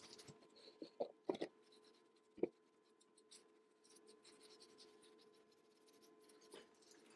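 Faint rubbing of a cloth rag wiping cold bluing onto a forged steel handle, with a few light knocks about a second in and a sharper tap at about two and a half seconds.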